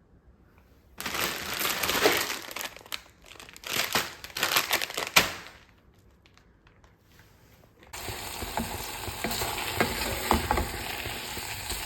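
Ramen cooking in a hot pan: a few seconds of loud, irregular sizzling and stirring that start and stop abruptly, then after a pause a steady sizzle with scattered ticks and pops.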